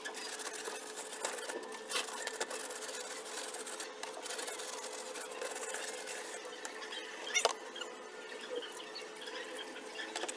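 A wet plastic cat carrier tray being rubbed by hand and handled, with scattered small knocks and one sharp plastic clack about seven and a half seconds in, over a steady low hum.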